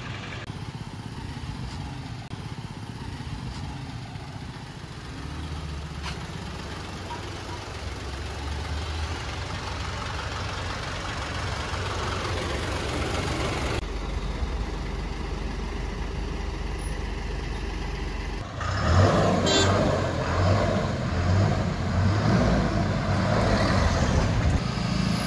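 Heavy truck's diesel engine running under load, a steady low hum that slowly builds and then gets much louder and heavier about 18 seconds in, with one short sharp sound a second later.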